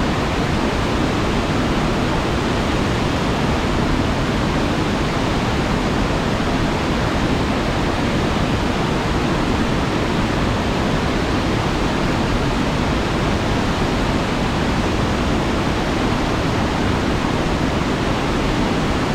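A waterfall's falling water: a steady, loud rushing that never changes, deepest at the low end.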